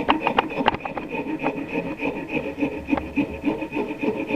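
Wood rasp working a wooden slingshot fork, rasping in quick, even back-and-forth strokes as the fork is shaped.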